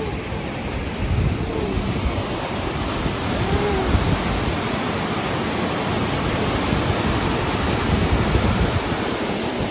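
Whitewater rapids of the Potomac River at Great Falls: a loud, steady rush of falling water.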